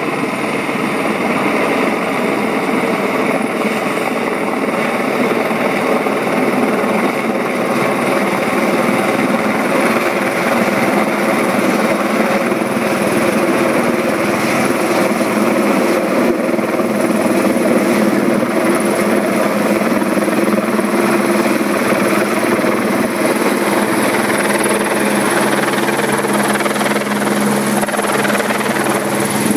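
Helicopter hovering low overhead with a load slung on a long line: loud, steady rotor and turbine noise that does not let up.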